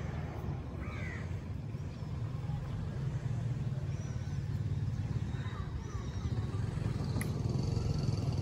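Steady low outdoor rumble of distant traffic and wind, with a few short bird chirps scattered through it and one faint sharp click about seven seconds in.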